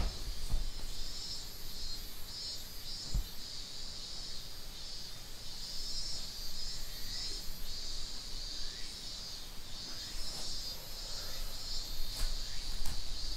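Insects chirping in a steady high chorus, with a fainter, evenly pulsing higher call over it. A soft low knock comes about three seconds in.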